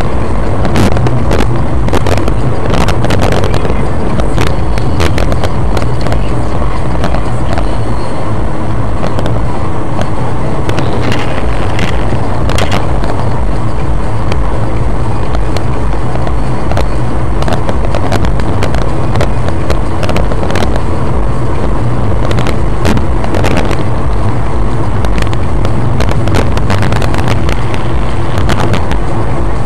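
Road and engine noise inside a moving car, picked up by a dashcam microphone: a loud, steady low rumble with many small clicks and rattles scattered through it.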